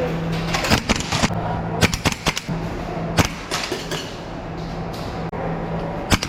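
Airsoft gun firing single shots at an irregular pace, about ten sharp cracks, most in the first few seconds and a pair more near the end, over a steady low hum.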